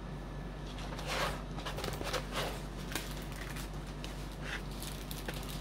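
Soft, irregular rustling and crinkling of a rolled diamond-painting canvas and its wrapping being handled and unrolled.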